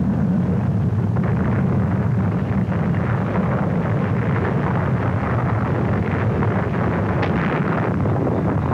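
Heavy, steady rumble of a Vanguard rocket's engine and fireball as the rocket loses thrust just off the pad and explodes. It starts abruptly and holds at one level, with no single blast standing out.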